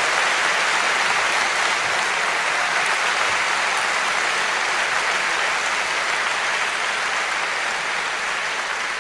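A large theatre audience applauding steadily, the clapping easing off slightly toward the end.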